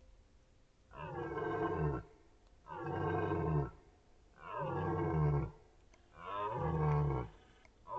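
Red deer stag giving its rutting roar: four long, deep roars in a row, each about a second long, with short pauses between.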